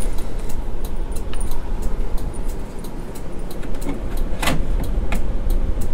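Motorhome turn-signal flasher clicking steadily, about three to four clicks a second, over a low steady hum. A short squeak about four and a half seconds in.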